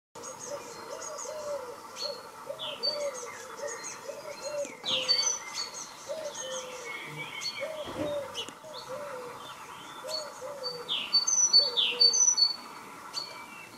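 Several birds singing outdoors: quick high chirps and whistles over a lower call repeated again and again, with a louder run of chirping near the end.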